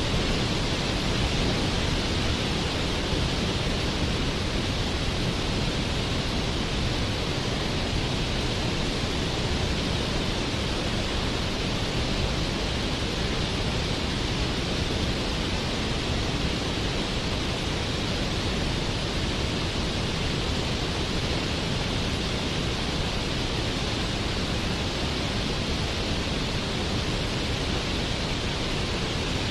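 Waterfall rushing steadily: a constant, even roar of falling water with no breaks or separate events.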